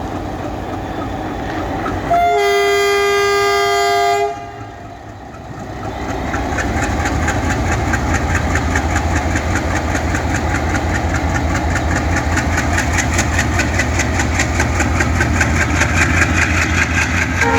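WDM-3A diesel locomotive sounding its multi-tone horn for about two seconds a few seconds in; then its engine chugs in a fast pulsing beat that grows louder as it powers up. A second horn blast starts just at the end.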